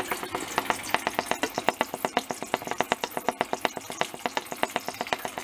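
Stovetop moonshine pot still running: a rapid, even run of ticks or pops, about eight a second, the noise it makes when running properly.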